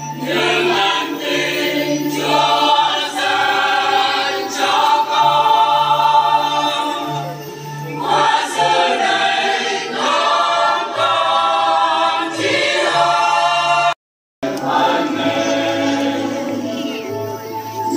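Choir singing a hymn, with sustained low accompanying notes underneath. The sound cuts out completely for a moment about fourteen seconds in.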